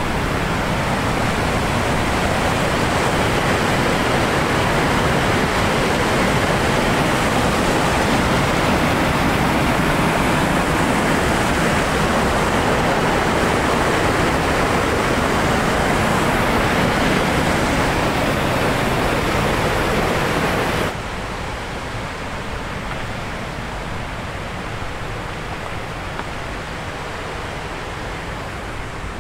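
Mountain stream cascading over boulders in small waterfalls: a steady rush of water. After about twenty seconds it cuts suddenly to a quieter, softer rush.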